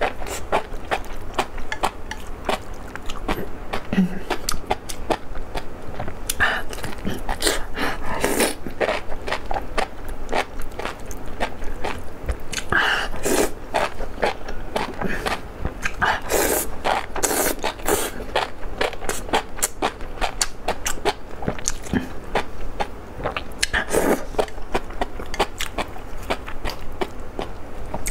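Close-miked mukbang eating of enoki mushrooms in chili oil: wet chewing and smacking clicks, with loud slurps as bunches of the strands are sucked in every few seconds.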